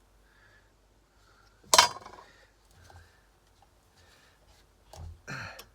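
A single sharp snip about two seconds in, then a couple of small clicks and knocks near the end: hand tools cutting and stripping an electrical flex.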